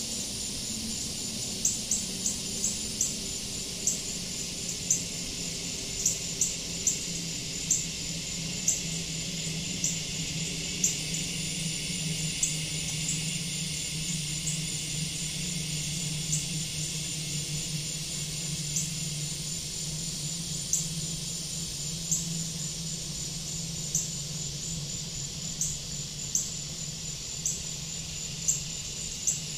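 Outdoor ambience: short, high chirps repeating irregularly, about one or two a second, over a steady hiss and a low hum.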